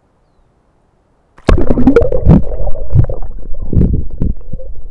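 Almost silent at first, then about a second and a half in, loud, muffled underwater gurgling and sloshing as the camera goes into the river water, with irregular surges.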